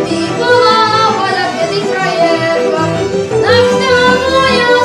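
Youth folk ensemble of violins, accordions, guitars, double bass and clarinet playing a Slovak folk tune together, the violins prominent.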